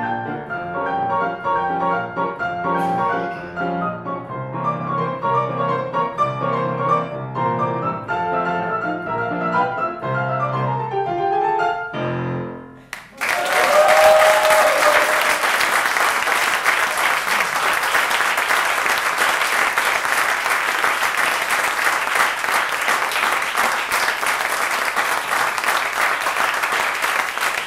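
Grand piano played four hands, the closing bars of a ragtime, ending about thirteen seconds in with a quick falling run and a final chord. Audience applause follows and continues steadily.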